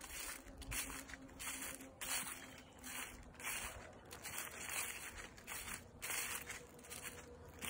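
Footsteps crunching through dry fallen leaves and gravel on a woodland track, at a steady walking pace of a little more than one step a second.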